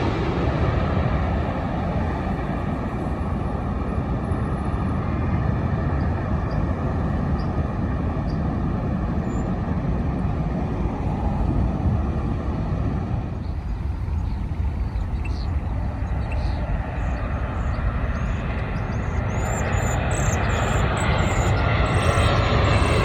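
Jet airliner engines rumbling steadily as landing aircraft pass, easing a little around the middle and building again over the last few seconds as another aircraft approaches.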